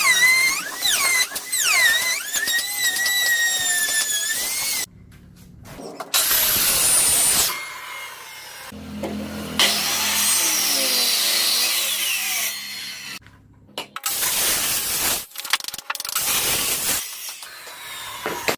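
Power tools working wood in a string of short, abruptly cut bursts of a second or two each. It opens with several seconds of high, wavering squeals.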